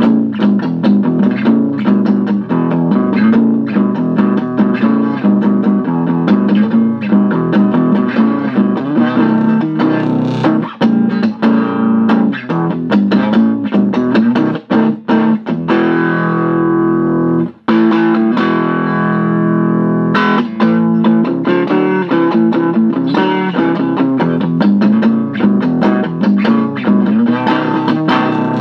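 Strat-type electric guitar played through a 1971 Watkins Clubman valve amp, a single EL84 in Class A, with the tone control nearly on full treble: a run of picked notes and chords, one chord held for over a second about two-thirds of the way in, then a brief break before the playing goes on.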